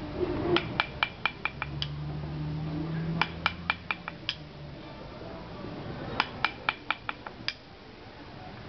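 Light, quick taps of a mallet on a wood-carving chisel as letters are cut into a wooden mask. The taps come in three runs of about five to seven, roughly four a second, each with a short bright ring.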